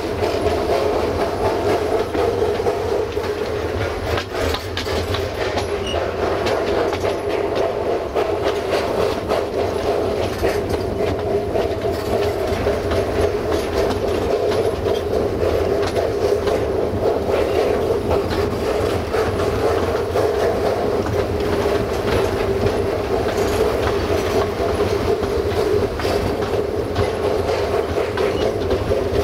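Narrow-gauge train in motion: wagon wheels running over the track with irregular clicking from the rail joints and a steady tone running under the rumble throughout.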